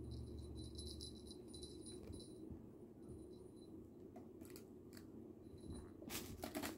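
Quiet room with faint scattered rustles and light clicks as kittens play with a feather wand toy on carpet, and a louder flurry of rustling near the end.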